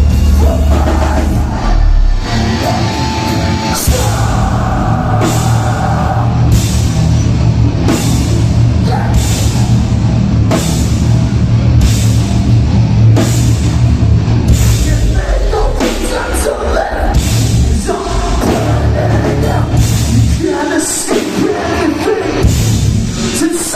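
Metal band playing live at full volume: heavily distorted guitars and bass with a drum kit crashing cymbals at a steady beat, and vocals over the top. The heavy low end drops out briefly twice in the second half before coming back in.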